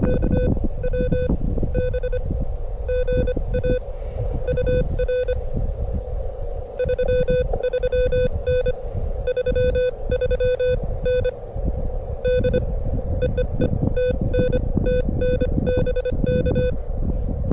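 Morse code (CW) beeping at about 25 words per minute: a single steady mid-pitched tone from a ham radio transceiver keyed on and off in dots and dashes during a contact, pausing briefly about six seconds in. Wind buffets the microphone underneath.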